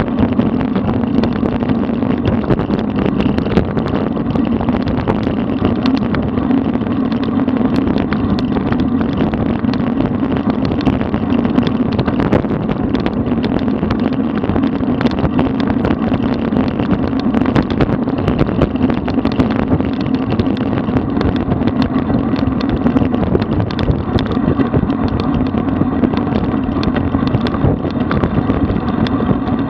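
Wind rushing over a bike-mounted camera's microphone, with road-bike tyres running on asphalt at speed, a steady rushing noise broken by frequent small clicks and knocks from the road and the bike.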